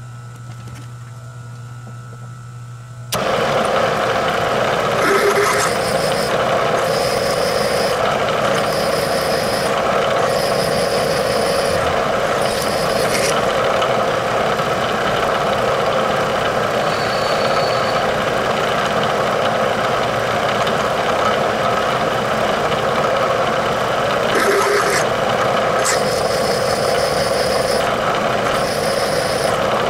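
Bridgeport milling machine drilling a metal axle bearing hub with a long twist drill. The spindle hums on its own until about three seconds in, when the drill bites and a loud, steady cutting noise starts, with a high-pitched edge that comes and goes about once a second.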